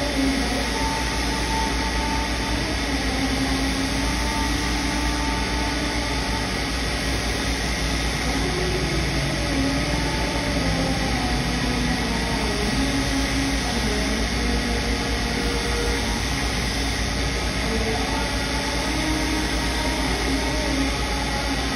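Motor-driven grinding wheel running steadily, with a steel knife blade ground against its rim at times; wavering tones come and go over the steady running noise.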